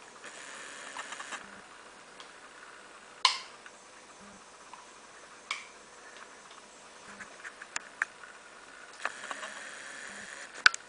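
Scattered small clicks and taps with brief soft rustling, from a plastic baby spoon, bowl and bib being handled during spoon-feeding. The sharpest click comes about three seconds in, another about two seconds later, and a last sharp one at the very end.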